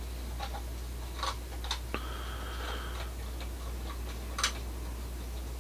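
Small plastic clicks and ticks as a fingertip works the hinged access door on a plastic scale-model turboprop's gearbox open, with a brief rubbing sound of the part about two seconds in.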